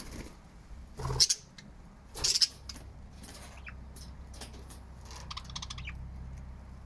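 Pet budgerigars chirping and chattering, with two loud sharp sounds about one and two seconds in and a quick trilling run of high notes about five seconds in.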